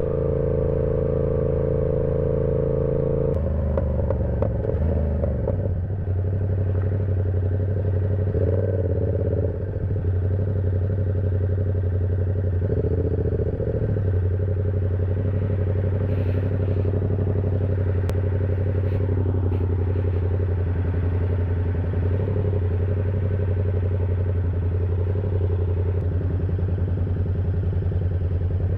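Yamaha R7 motorcycle engine and exhaust while riding. It holds steady revs at first, then the revs drop about three seconds in, with short rises in revs a few seconds later. It then settles into steady, low-revving running.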